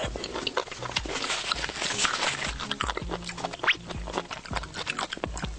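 Close-miked chewing of spicy dressed kelp: dense wet crunching with many quick mouth clicks.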